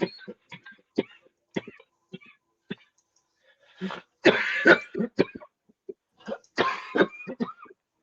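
A person coughing repeatedly: short coughs and throat-clearing early on, then two louder, longer coughing fits about four and a half and seven seconds in.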